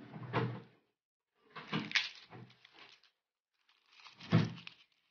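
Garlic being peeled by hand: three short bursts of papery crackling and rustling as the dry skins are pulled and torn off.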